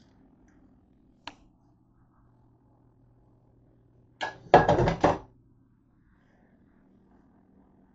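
Kitchenware being handled at a dish rack: a single sharp click, then about a second of loud knocking and clattering a little past the middle as a plastic colander is moved among the dishes.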